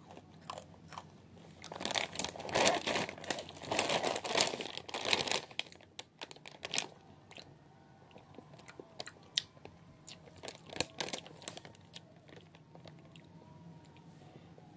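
Someone chewing spicy chips close to the microphone. The crunching is dense from about two to five seconds in, then thins to scattered softer crunches and clicks.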